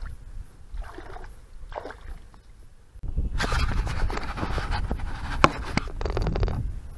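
Two short breathy puffs. Then, about three seconds in, a burst of rustling, scraping and knocking from a GoPro being handled and set down in the snow, which stops just before the end.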